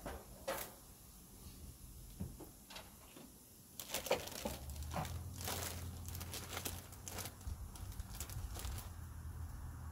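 Scattered clicks and rustling from a plastic bag of frozen hash browns being handled and cut open with a knife, with footsteps on a wooden deck. A low rumble comes in about four seconds in.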